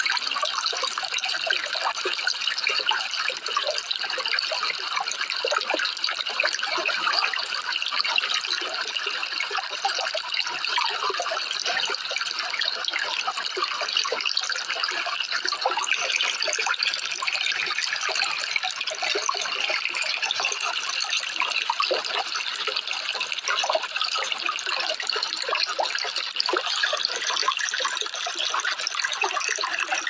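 Running water, splashing steadily without a break.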